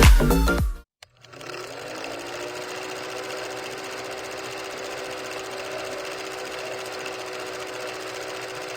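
Electronic dance music cuts off in the first second. After a brief silence comes a steady machine hum at a constant pitch.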